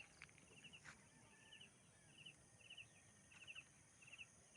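Faint outdoor ambience with a small animal's repeated chirp: a quick run of a few high pulses about every two-thirds of a second.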